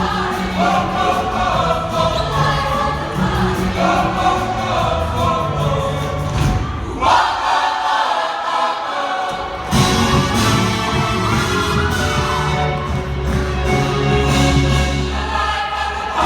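A group of voices singing with a band backing. About seven seconds in the bass and drums drop out, leaving the voices nearly alone, and come back in near ten seconds.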